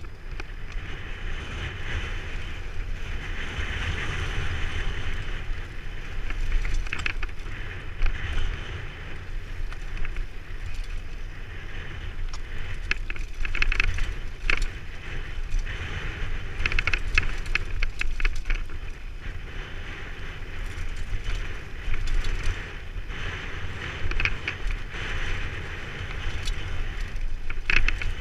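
Mountain bike descending a dry, rocky dirt trail: tyres rolling over dirt and loose stones and the bike rattling over rocks, with many short sharp knocks, over steady wind rush on the microphone.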